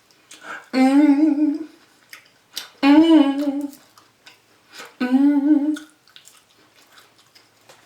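A woman humming a tune in three wavering phrases of about a second each, with short pauses between them and faint clicks in the gaps.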